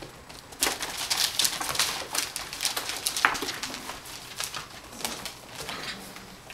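Seven-week-old Labradoodle puppies moving about, making a run of short clicks and scratches mixed with small squeaky animal noises.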